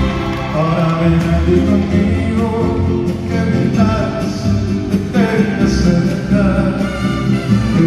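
A live band playing a ballad through the arena's sound system, heard from the stands.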